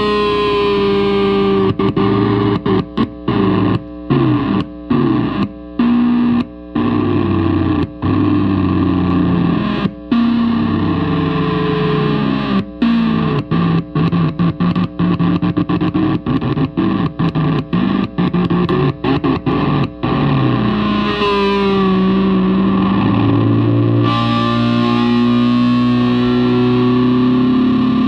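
Electric guitar played through a Marshall amplifier with heavy distortion. The notes and chords are broken by many brief, sudden silences during most of the stretch, then give way to longer held chords near the end.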